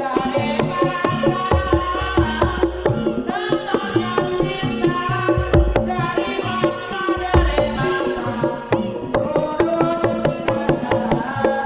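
Banyumasan lengger music from a live Javanese ensemble: hand-played kendang drum strokes under ringing tuned percussion, with a female sinden singing gliding lines above.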